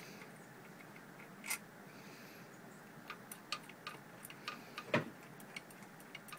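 Irregular small clicks and ticks of a Phillips-head screwdriver backing the screws out of a wheelchair's armrest pad, with one louder knock about five seconds in.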